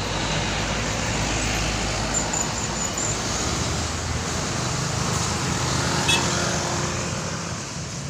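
Road traffic noise as a heavy truck and a coach pass by: a steady rumble of engines and tyres that eases off near the end.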